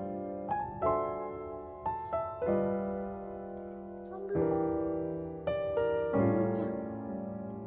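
Background piano music: gentle notes and chords, each struck and left to fade.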